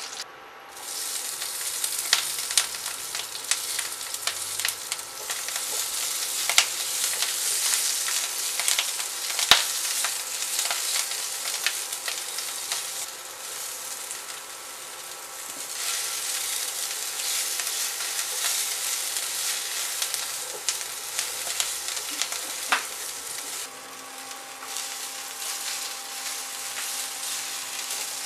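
Food frying in oil in a frying pan: a steady sizzle with crackles and the taps and scrapes of a spatula stirring. It is first cubes of tofu, then sliced red bell pepper, spring onion and green beans being sautéed. The sizzle eases twice for a few seconds.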